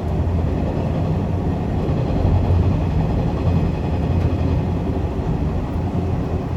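485-series 'Zipangu' train running at speed: a steady low rumble of wheels and running gear that does not let up.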